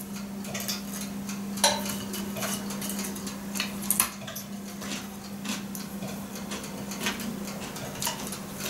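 Light scattered clinks and taps on a ceramic plate as a muffin is broken apart by hand, the sharpest about a second and a half in and again around four seconds, over a steady low hum.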